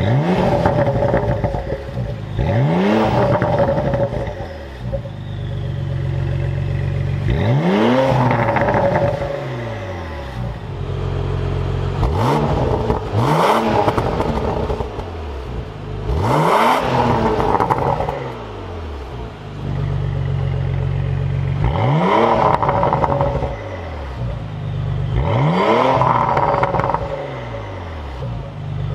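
Porsche Macan Turbo's twin-turbo V6 free-revving through an Armytrix valvetronic exhaust with the valves closed. It settles back to idle between about seven quick throttle blips, each a rise and fall in pitch.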